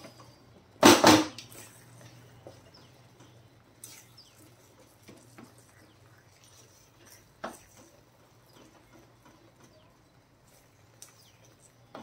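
Wooden spatula stirring and scraping thick halwa in a brass kadai, with a loud clatter against the pan about a second in and a few faint knocks after it.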